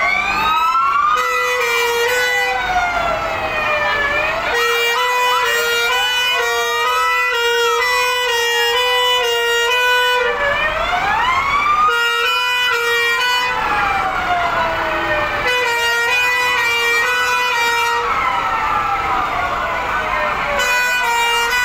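Several fire engine sirens wailing at once, their rising and falling pitches overlapping out of step. In several stretches one siren switches to a pulsing two-tone pattern, about two pulses a second.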